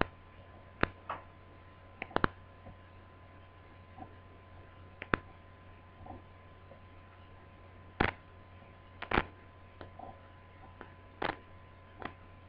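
Scattered light clicks and taps, about a dozen at irregular intervals, from small hand tools and parts being handled at a repair bench, over a steady electrical hum. The loudest clicks come about 8 and 9 seconds in.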